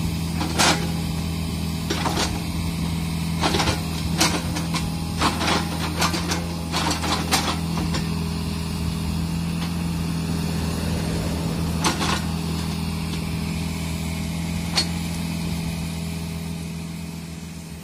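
Mini excavator's diesel engine running steadily under load as its bucket digs into soil and roots at the base of a tree, with sharp clanks and knocks from the bucket and arm, most frequent in the first half. The sound fades out near the end.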